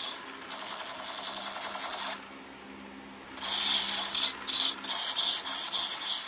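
Battery-powered light-up toy gun firing: its small speaker plays an electronic machine-gun sound effect, a fast run of high buzzy pulses, over the steady whir of its motor. The pulses give way to a steadier buzz about half a second in, fall quieter around two seconds in, and start again about three and a half seconds in.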